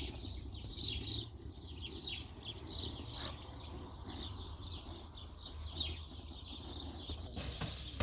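Small birds chirping busily, many quick falling chirps in close succession, over a steady low rumble. A high hiss sets in near the end.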